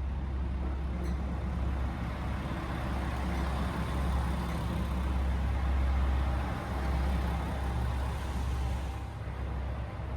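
Diesel railcar engine running with a heavy, steady rumble that swells in loudness around the middle.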